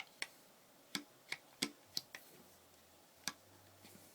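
Light, irregular clicks and taps of a Cooey Model 84 single-shot shotgun's forend and its spring-loaded latch being handled and lined up against the barrel, about seven over a few seconds.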